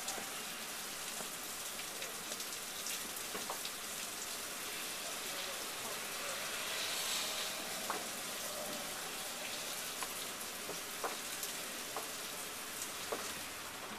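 Rain falling on a car's windshield, heard from inside the cabin: a steady hiss with scattered faint ticks of drops.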